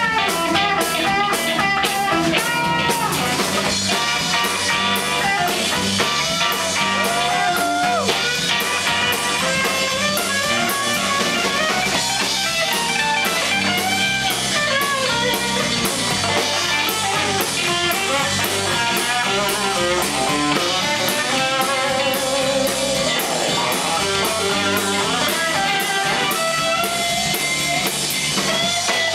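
Live blues band playing: a hollow-body electric guitar plays lead lines with bent notes over bass and a drum kit.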